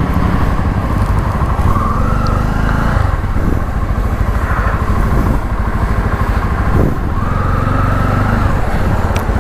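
Bajaj Pulsar F250's single-cylinder engine running at low speed as the motorcycle rolls slowly, its pitch rising a little twice.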